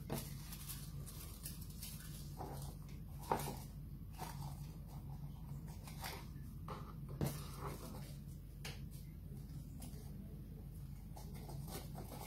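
Tissue paper rustling and light taps and knocks on a tabletop as pieces are pressed inside a cardboard toilet roll tube, over a steady low hum. The two loudest knocks come about three seconds in and about seven seconds in.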